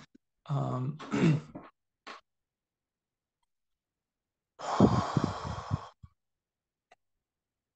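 A man's short wordless voiced sound near the start, then after a pause a long audible sigh, a breath out lasting about a second and a half.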